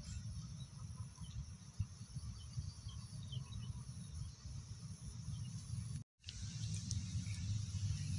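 Outdoor background noise: a low uneven rumble under a thin steady high whine, with scattered faint chirps. The sound cuts out completely for a moment about six seconds in.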